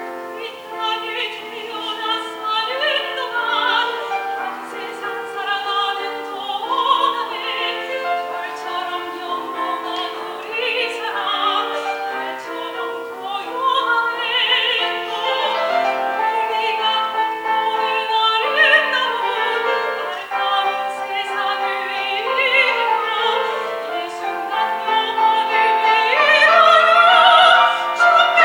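Soprano singing a Korean art song in classical style with vibrato, accompanied by piano, growing louder near the end.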